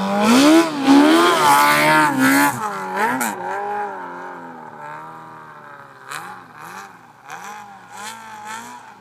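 Yamaha Apex snowmobile's four-cylinder four-stroke engine, through an aftermarket MBRP exhaust, revving up and down as the sled spins donuts. It is loudest in the first three seconds as it passes close, then fainter as it circles away, with short rev blips near the end.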